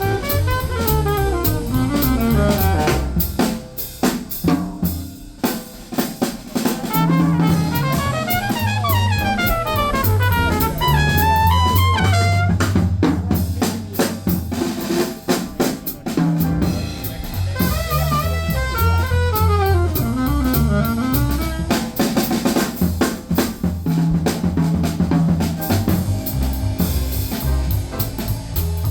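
Small jazz group playing: a busy drum kit with snare and bass drum hits under fast melodic runs that climb and fall, over a low bass line.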